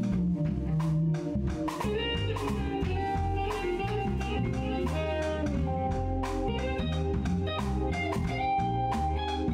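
Live band playing an instrumental jazz-blues groove. Electric bass carries the low notes under electric guitar and sustained keyboard tones, with a steady drum-kit beat.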